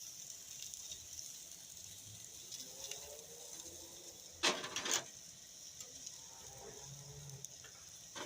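Beef steaks sizzling on a gas grill, a steady high hiss, with two short loud scrapes about halfway through.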